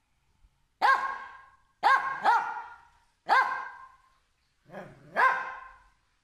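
A dog barking repeatedly, about six sharp pitched barks roughly a second apart, each trailing off quickly, with two barks in quick succession about two seconds in.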